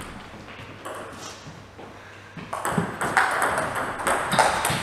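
Table tennis rally: a plastic ball clicks sharply off the rackets and the Cornilleau table top in quick succession. After about two and a half quiet seconds while the serve is prepared, the hits come roughly every half second or less.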